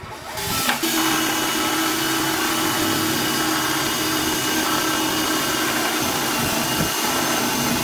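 Green Bosch cordless drill with a flat spade bit running steadily as it bores a hole through the plastic wall of a water butt, starting up about a second in.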